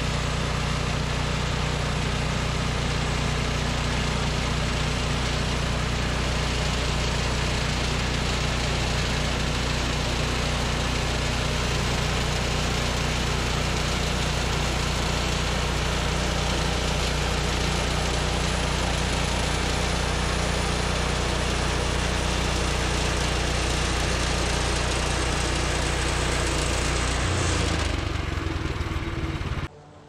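Woodland Mills HM126 portable bandsaw mill running, its 14 hp engine held steady while the band blade rips through a white cedar slab. About three seconds before the end the engine tone drops away, and the sound then cuts off.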